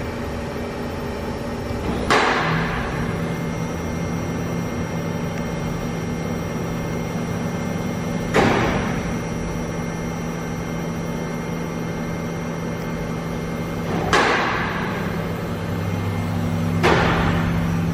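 Mikron HSM-400U high-speed 5-axis machining center running with a steady hum, broken by four sudden bursts of noise, each fading away within about a second.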